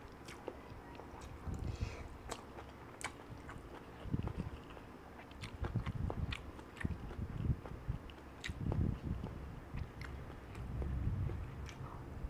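Close-up chewing of mouthfuls of kimchi and black-bean-sauce noodles, with sharp ticks of a metal fork against the dish scattered throughout. A bite of boiled egg comes near the end.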